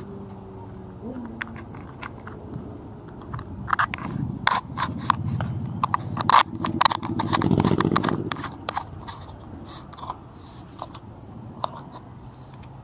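Irregular clicks, crunches and scrapes close to the microphone, starting about three and a half seconds in and thickest through the middle, then thinning out.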